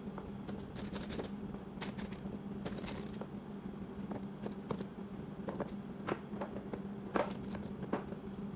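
Irregular light taps and soft rustles as wrapped, uncooked spring rolls are picked up and set down in a plastic tray, over a steady low hum.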